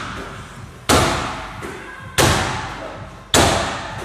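Medicine ball thudding into hands as it is caught in a two-person passing drill: three thuds about a second and a quarter apart, each echoing briefly in a bare room.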